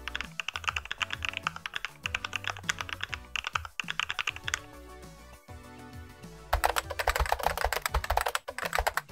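Rapid keyboard typing with simulated switch clicks from the Mechvibes app, first on its NK Cream preset. The typing stops for about two seconds midway, then resumes louder on the Topre Purple Hybrid PBT-keycap preset, over background music.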